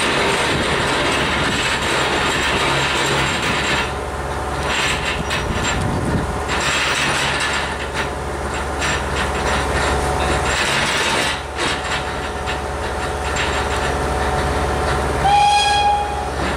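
The wheels of Gresley N2 0-6-2 tank locomotive 1744 roll slowly off a low-loader trailer's steel ramp rails with clanks and creaks, over a steady low drone. Near the end comes a short, high-pitched squeal lasting about half a second.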